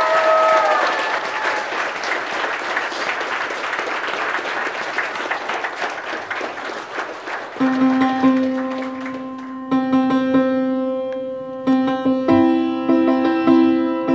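Congregation applauding, with a whoop at the start. About seven and a half seconds in, recessional music begins on a keyboard, held chords and notes sounding over the thinning applause.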